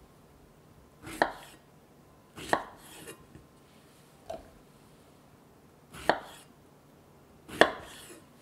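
Fresh strawberries being hulled with a small kitchen knife over a wooden cutting board: four sharp taps of knife and berries on the board, each just after a short cutting sound, with a couple of fainter clicks between.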